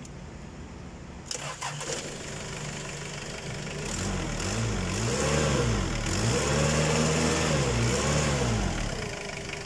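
Toyota 7FD20 forklift diesel engine idling, with a brief rattle of knocks about a second in, then revved up and down several times and settling back to idle near the end. It is running and revving freely after a hard-start fault traced to a blown fuse in the glow-plug heater circuit.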